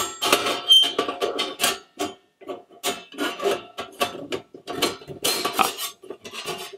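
Stainless-steel plates and grates of a Skotti folding gas grill clinking and clattering as they are handled, a quick irregular run of metal knocks with a light ring.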